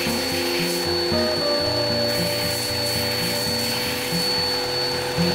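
Belt sander running steadily with a small wood piece held against the moving belt, giving an even sanding hiss and a constant high motor whine. Background music with a changing melody plays over it.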